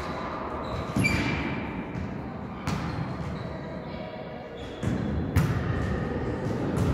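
A volleyball being hit and bouncing on a sports-hall floor: several sharp thumps that echo in the large hall, the loudest about five seconds in.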